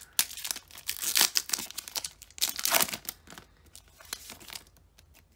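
Foil Pokémon card booster pack being torn open by hand, the wrapper crinkling and ripping loudly for about three seconds. Fainter rustling follows as the cards are pulled out of the torn pack.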